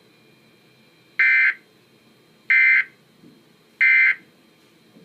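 Emergency Alert System end-of-message (EOM) data bursts: three short, harsh digital screeches a little over a second apart. They mark the end of the alert broadcast.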